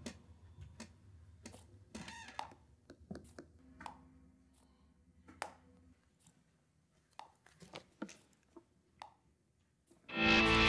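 Quiet room tone with scattered small clicks and taps and a low steady hum that stops about six seconds in. Distorted electric guitar music comes in loudly near the end.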